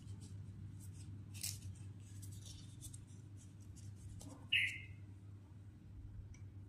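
Faint rustles and small clicks of food preparation being handled, over a steady low hum. One short, sharp, high-pitched sound stands out about four and a half seconds in.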